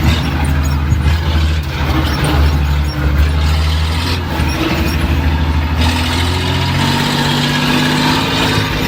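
An engine running steadily with a low hum, its pitch stepping up slightly about six seconds in.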